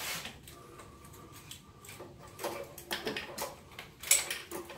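Scattered light clicks and taps of small parts being handled by hand in a car's engine bay around the intake manifold, with one sharper click near the end.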